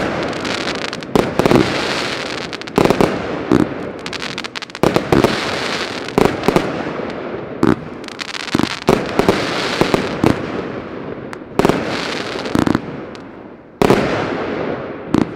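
Geisha Tournament Box fireworks cake firing shot after shot, some singly and some in quick salvos: sharp bangs every second or so, each followed by a rushing, fading noise.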